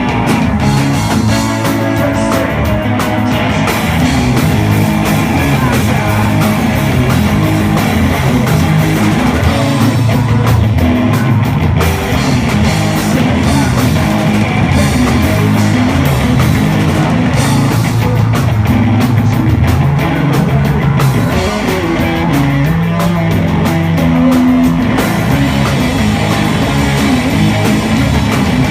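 Live rock band playing loudly: electric guitar and drums in a continuous, unbroken stretch of a song.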